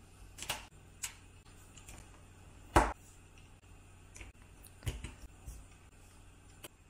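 Plastic LEGO plates and curved pieces being pressed onto studs and handled on a tabletop: about six sharp plastic clicks and taps, the loudest a little under three seconds in.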